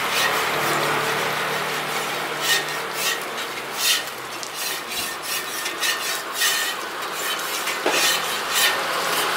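Scallion dough deep-frying in a wok of hot oil with a steady sizzle. A metal utensil scrapes and stirs in the oil in short strokes at irregular intervals, about every half second to a second.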